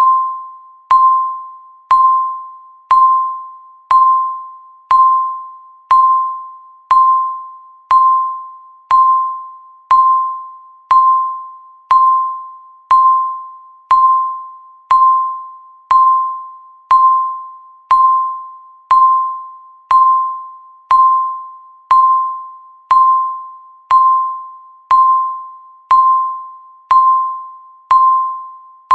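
Countdown timer's electronic beep sounding once every second. Each beep is a single steady mid-high tone that starts sharply and fades out before the next, marking the passing seconds.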